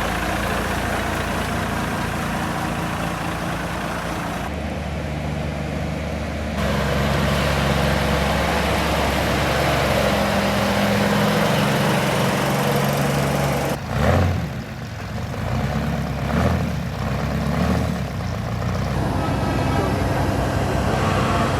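Heavy truck diesel engines running at idle, with the engine note shifting now and then and a brief knock about two-thirds of the way through.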